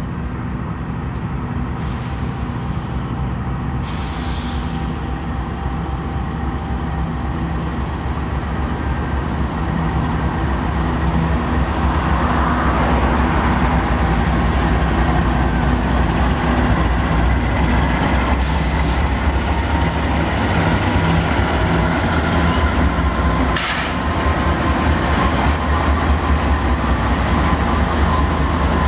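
Two GE AC4400CW diesel-electric locomotives heading an intermodal train, their engines running with a steady low rumble that grows louder as they approach and pass close by.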